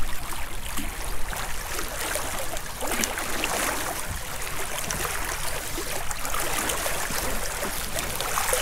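Choppy water lapping and sloshing against the side of a small boat, with wind buffeting the microphone.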